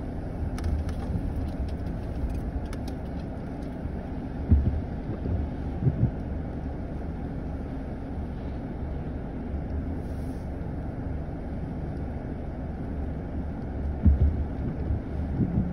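Steady low rumble in a car's cabin while it waits at a traffic light, its engine idling, with a few short low thumps about four and a half, six and fourteen seconds in.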